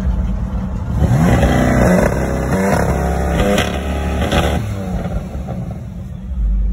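BMW M4's twin-turbo straight-six revving hard while the rear tyres spin in a burnout. The pitch climbs and swings from about a second in, then eases off a little after about four and a half seconds.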